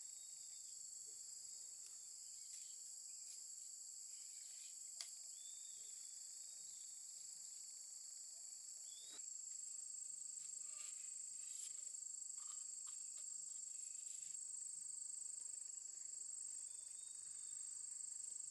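A steady, high-pitched chorus of insects, with a thin, even, high tone joining about halfway through, and a few faint short chirps and a single click.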